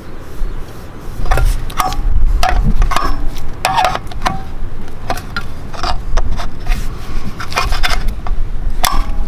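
Irregular knocks and clicks of a center wheel cap being pressed and tapped with a hammer into a trailer's alloy wheel hub, with a low rumble underneath. The cap is too big for the hub and will not seat.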